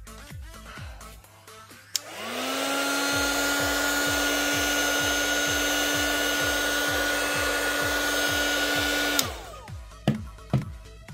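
Handheld heat gun switched on with a click about two seconds in. Its fan motor rises to a steady whine over a rush of hot air, runs for about seven seconds, then is switched off with a click and spins down. It is heating the phone's glued back panel so it can be prised open.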